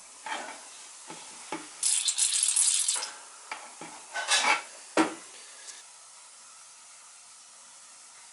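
Air and water spitting from a hot-water radiator's bleed valve in a loud sputtering hiss for about a second, with a second shorter spurt a little later. Clicks and a sharp knock about five seconds in come from handling the valve and fittings.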